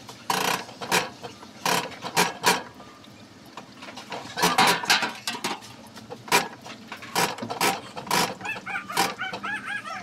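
Diesel injector nozzle from a Komatsu 3D84 engine spraying on a hand-lever pop tester, giving a series of short, sharp hissing bursts as the lever is pumped.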